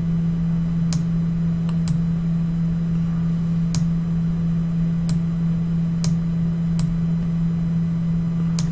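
A steady low electrical hum with about seven sharp computer mouse clicks at irregular intervals.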